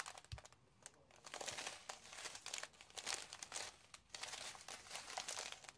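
Strips of clear plastic drill packets crinkling as they are handled, in a series of short rustles.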